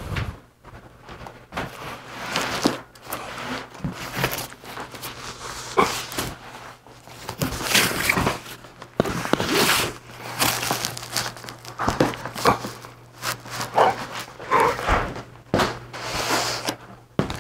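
A large, heavy cardboard box being handled, lifted, carried and set down on a table: irregular scraping and rustling of cardboard with knocks, along with footsteps.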